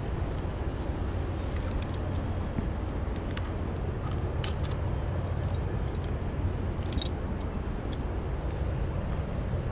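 Light metallic clinks and ticks from rope-access hardware (descender and carabiners) over a steady low rumble, the sharpest click about seven seconds in.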